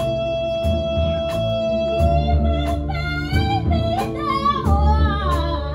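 Live band of violins, cello, double bass, electric guitar and drum kit playing, with drum hits about every two-thirds of a second under low bass notes. A long held note gives way, about two seconds in, to a female singer's wavering, bending melody.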